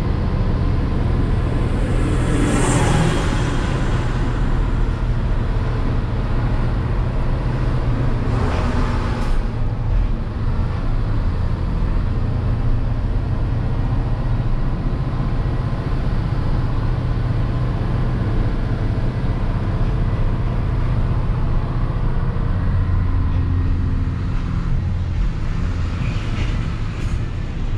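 Hino 500 truck's diesel engine running steadily under way, heard inside the cab with road noise. Brief hissing swells of noise come through about two to three seconds in and again near nine seconds.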